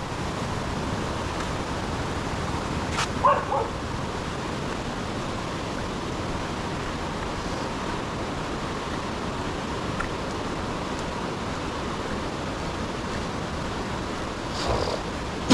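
Steady rush of a river flowing, with a short yelp-like call about three seconds in and another brief sound near the end.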